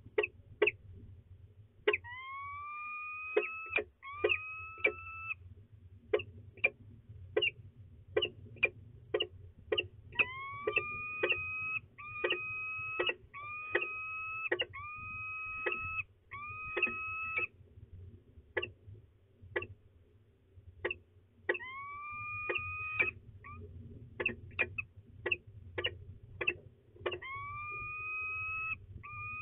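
Peregrine falcons calling at close range: many sharp, short chipping notes, some in quick pairs, mixed with runs of two to six drawn-out whining calls, each about a second long, that rise and then hold their pitch.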